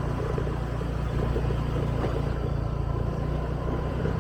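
Motorbike riding along a road, its engine running steadily under a low, even rumble.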